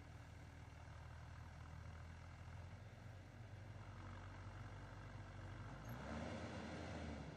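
Heavy-machinery diesel engine running with a steady low hum, working harder about six seconds in with a louder, higher note.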